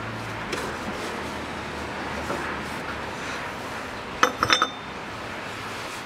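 A quick run of four or five sharp metallic clinks with a short ring, a little past four seconds in, over a low steady hiss: metal tools and parts knocking together during hand work on the engine's belt drive.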